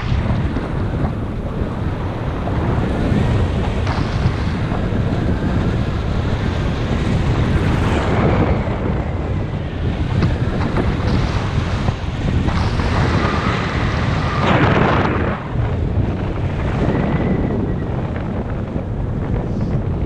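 Wind rushing over a GoPro HERO5 Black's microphone in paraglider flight: a loud, steady blast of wind noise that swells a couple of times.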